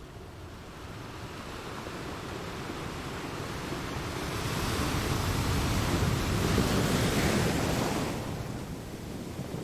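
Sea waves on a shore: a steady rushing hiss that swells up over several seconds, peaks, and falls away near the end as one wave breaks and recedes.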